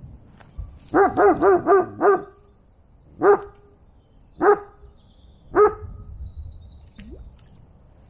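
Dog barking: a quick run of five barks about a second in, then three single barks spaced about a second apart.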